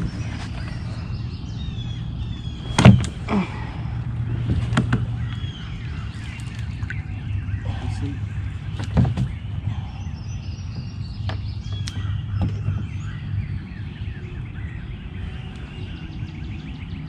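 Songbirds chirping and calling, over a steady low rumble, with a few sharp knocks: the loudest about three seconds in, smaller ones near five, nine and twelve seconds.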